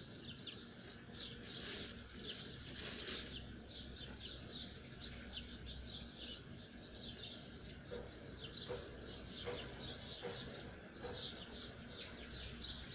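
Many small birds chirping in a busy chorus of quick, high notes, with a steady low outdoor background hum.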